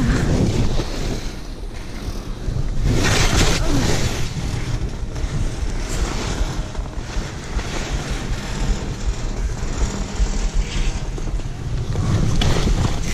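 Wind buffeting a GoPro Hero 8's microphone during a fast ski descent, a constant low rumble, over the hiss of skis carving and scraping through snow, which surges about three seconds in and again near the end.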